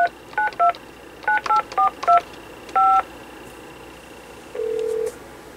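Touch-tone (DTMF) key beeps from the Sanyo CLT-9581 cordless phone base as its keypad is pressed: about nine short two-note beeps in quick succession, the last held a little longer. A single lower beep of about half a second follows near the end.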